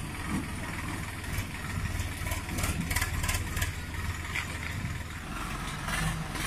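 Three-cylinder diesel engine of a Swaraj 744 XT tractor running steadily under load as it hauls a loaded trolley up the slope out of a dirt pit.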